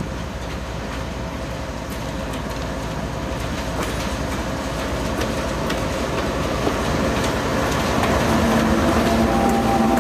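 Train cars rolling past, the wheels clicking over the rail joints over a steady rumble that grows louder. A droning tone comes in near the end.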